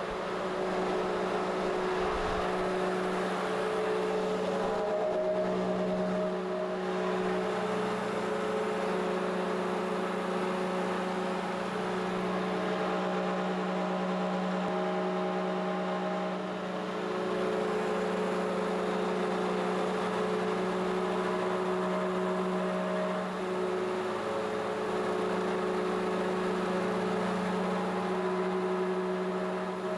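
Clausing Kondia knee mill under CNC control running its program, the end mill cutting a test block of what looks like aluminium. A steady machine hum with a set of whining tones that come and go and shift in pitch every few seconds as the axes move.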